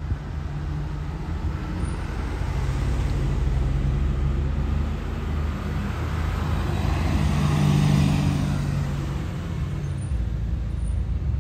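Mercedes-AMG GT Black Series twin-turbo V8 running at low speed as the car drives slowly past, its engine note swelling to its loudest about eight seconds in, then easing off as it pulls away.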